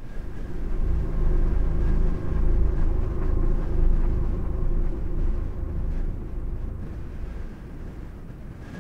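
Steady low rumble with faint held tones above it. It cuts in suddenly and fades slowly over the last few seconds.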